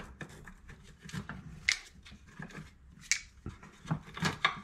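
Rusty steel bolts clinking as they are dropped one by one into a bowl of citric acid solution. Several separate clicks, then a quicker run of them near the end.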